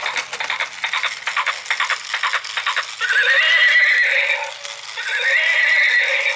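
Battery-operated toy unicorn making a fast clicking rattle, then playing two recorded horse whinnies through its small speaker, one about three seconds in and one near the end.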